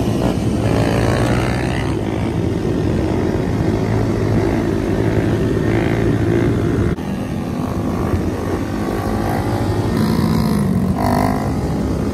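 Honda Grom mini motorcycles' small single-cylinder engines running hard and revving up and down through wheelies. The sound cuts abruptly to another bike about seven seconds in.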